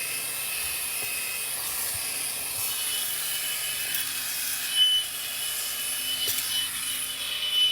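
Ebossom cordless handheld car vacuum running on its higher speed: a steady high-pitched whine and rush of air, with the nozzle scraping now and then.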